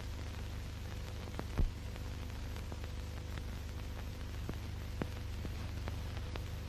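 Surface noise of an old optical film soundtrack: a steady hiss and low hum with scattered clicks, and one louder pop about a second and a half in.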